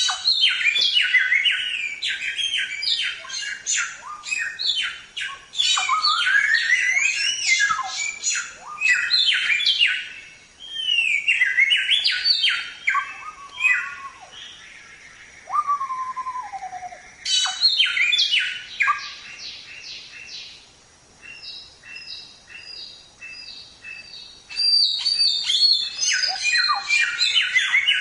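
Golden whistler (samyong) singing in rapid bursts of varied chirps, trills and sharp whistled notes, with a few falling slurred whistles. About three quarters of the way in it turns quieter, with evenly spaced short notes, then picks up again in a fast burst near the end.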